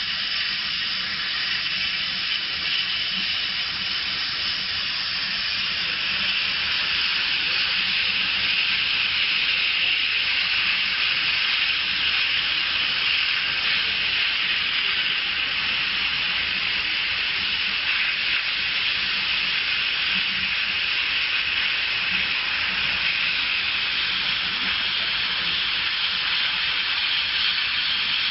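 Steady airy hiss from a laser cutting machine at work cutting paper, with air blowing through the cutting head's air-assist nozzle; it grows slightly louder about six seconds in.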